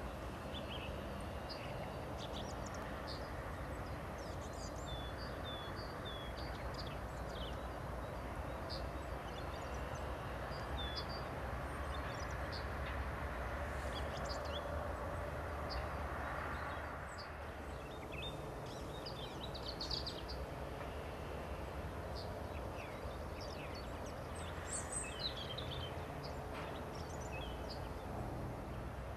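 Small birds chirping and calling in short, high notes scattered throughout, over a steady low rumble.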